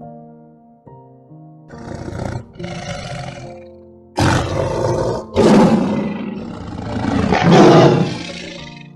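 A big cat roaring four times over soft background piano music, the calls growing louder, the last the longest and loudest.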